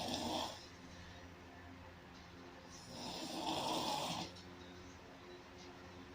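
Loud snoring in a slow rhythm: the end of one snore at the very start, then one full snore about three seconds in, each lasting a second or so. A faint steady low hum runs underneath.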